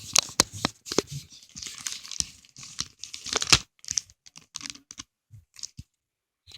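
A shipping package being torn open by hand, its wrapping ripping and crinkling in a quick string of sharp tears and rustles that stops abruptly near the end.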